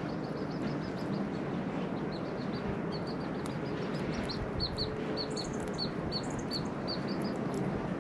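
A bird chirping over and over, short calls about twice a second, beginning about two seconds in, over a steady background noise.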